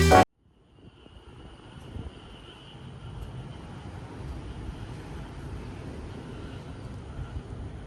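Low outdoor rumble that fades in and grows over the first few seconds, then holds steady, with a faint thin high tone above it.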